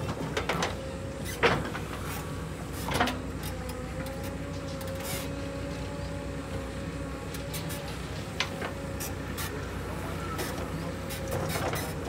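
JCB 3DX backhoe loader's diesel engine running steadily under a wavering whine, with a few sharp knocks, the loudest about a second and a half in and more near the end.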